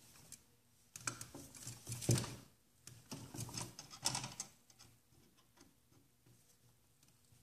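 Pliers forcing a connector onto twisted bare copper ground wires: short bursts of metal clicking and scraping, about four of them a second apart, then it goes quiet.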